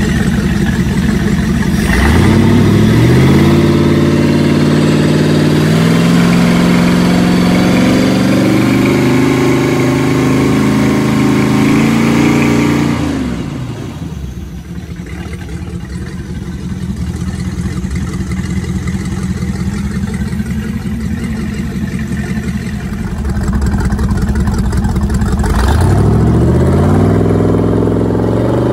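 Freshly rebuilt Crusader 454 big-block V8 marine engine running with water spraying from its wet exhaust. It is revved up about two seconds in and held at higher revs, drops back to a steady idle about halfway, then is revved up again near the end.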